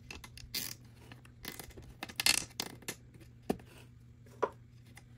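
Nylon zip tie being pulled tight through an adhesive zip-tie mount: a run of short ratcheting rasps and scrapes, the loudest a little past two seconds in, then two sharp clicks near the end.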